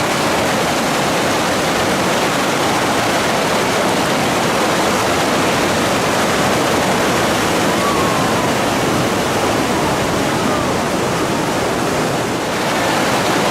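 Loud, steady rush of river whitewater.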